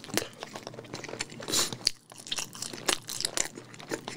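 A person chewing french fries with the mouth close to the microphone: a run of soft crunches and wet mouth clicks.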